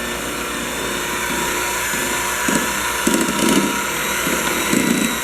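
Steady whir of a small electric motor, like a kitchen appliance, with a low hum under it and a few short louder bursts from about halfway in.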